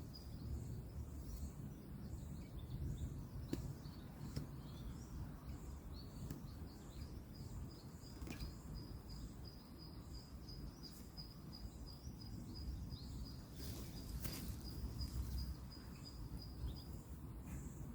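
Woodland ambience: a steady low rumble of distant road traffic under a continuous high insect buzz that stops near the end, with scattered bird chirps and a few faint clicks.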